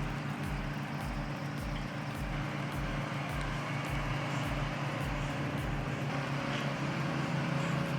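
A heavy machine's engine running steadily, with a low beat pulsing about twice a second underneath.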